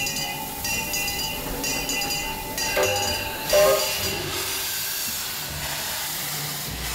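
Steam locomotive No. 967 sounding at rest, with steam hissing steadily through the second half. A short louder sound stands out about three and a half seconds in.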